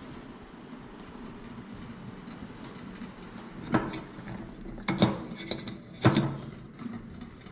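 Four sharp metal clanks with a short ring, the loudest near the end: an enamel coffee percolator and its lid knocking against a wood cookstove's steel top as they are handled.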